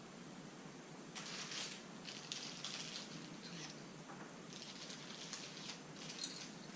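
Pen drawing on paper: a series of short, scratchy strokes, starting about a second in and running in two clusters.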